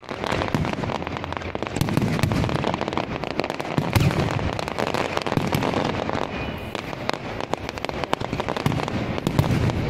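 Aerial fireworks display: a dense, continuous crackle of many small bangs from bursting shells, with heavier booms about two, four and nine and a half seconds in.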